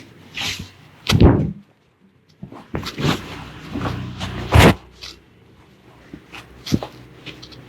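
Barber's hands slapping and striking the head during a vigorous head massage: a few irregular thumps, the loudest about a second in and again about four and a half seconds in.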